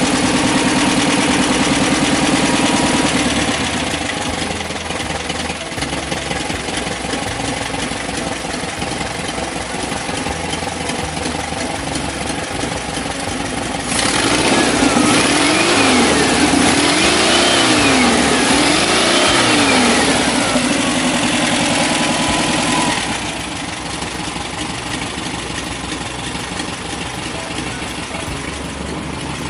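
Old Volkswagen's rear-mounted engine running steadily after being reinstalled, revved up and down about three times in the middle before settling back to idle.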